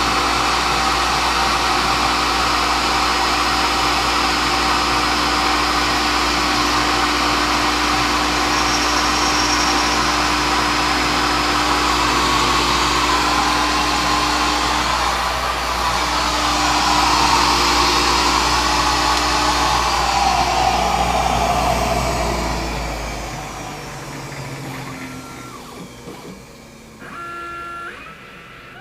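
A CNC milling machine running steadily on an aluminum part, a loud even whir with a hiss over it. About three-quarters through, the pitch falls and the sound winds down. A few short stepped tones follow near the end.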